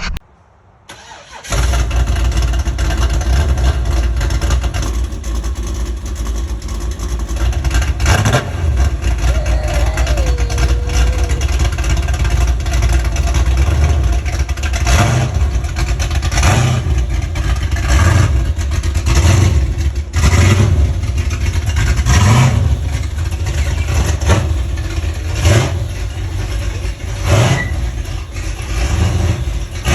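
Holden VN Calais engine running with a deep, steady exhaust note that cuts in suddenly about a second and a half in, then blipped repeatedly through the second half.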